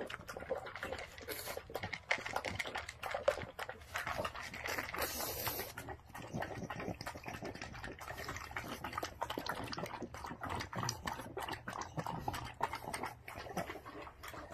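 Pugs eating dog food from bowls: a continuous run of wet chewing, licking and small crunchy clicks as they work their muzzles in the bowls.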